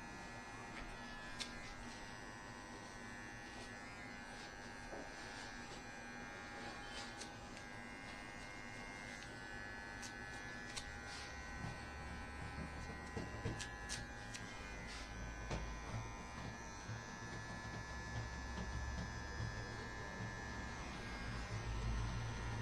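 Electric hair clippers buzzing steadily as they cut a boy's hair, with a few light ticks and a low hum that grows stronger in the second half.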